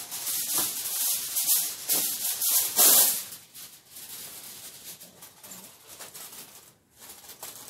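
Aluminium foil being pulled off the roll and crinkled, with loud crackling rustle for about three seconds, loudest near the end of that, then softer rustling.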